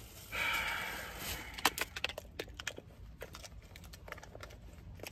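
Faint handling noise: a brief rustle, then a run of irregular small clicks and crackles.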